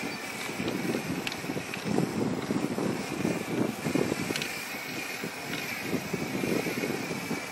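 Wind buffeting the microphone in uneven gusts, with a faint steady high tone underneath.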